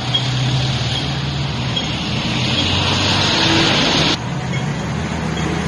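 Road traffic noise: vehicle engines running with a steady low hum and a wash of hiss. The hiss eases about four seconds in.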